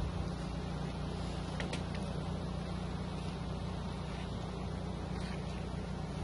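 Motor of a livestock feed chopper-grinder machine running steadily, an even low hum that holds the same pitch throughout.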